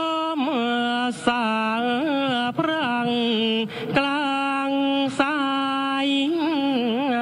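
A single voice chanting the Thai royal barge song (kap he ruea), drawing each syllable out into long held notes with wavering, bending ornaments, and breaking off briefly for breath a few times.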